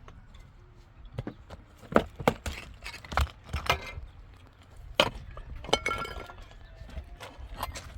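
Irregular sharp knocks and clinks of hard objects striking each other, about nine in all, one near the middle ringing briefly like metal.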